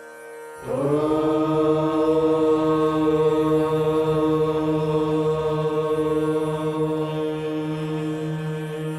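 One long, steady chanted note, held for about eight seconds and starting about half a second in, over soft sitar-like devotional instrumental music.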